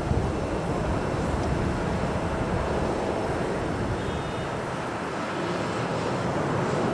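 Boeing 737-800 jet engines at takeoff thrust, a steady rushing roar, with strong wind buffeting the microphone in irregular low rumbles.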